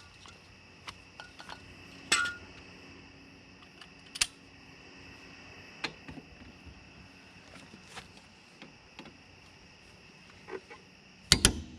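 Scattered metallic clicks and clinks of a wrench working the axle nut on a rear wheel hub assembly. Near the end comes a sharp, loud double click: the torque wrench reaching its 150 setting.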